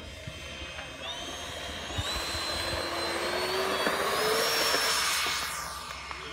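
Engine of a radio-controlled scale model JF-17 jet whining on its takeoff run, rising in pitch and loudness as it speeds up. It is loudest as it passes about four to five seconds in, then drops in pitch and fades as it climbs away.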